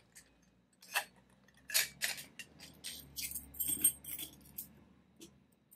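Metal parts of a door lock set being handled: a string of small clicks and knocks, with a cluster of bright metallic clinks about three to four seconds in.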